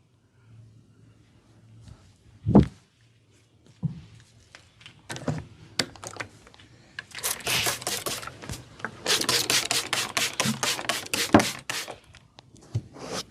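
Massage percussion by hand on a client's body: a single heavy thump about two and a half seconds in, a few scattered knocks, then from about seven seconds a fast run of sharp strikes, several a second, which stops near the end.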